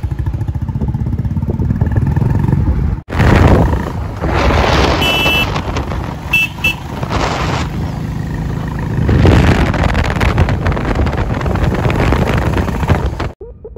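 Royal Enfield Bullet 350's single-cylinder engine thumping steadily at low revs. After a cut, the bike is ridden along with heavy wind rush on the microphone over the engine, and there are two brief high beeps about five and six and a half seconds in.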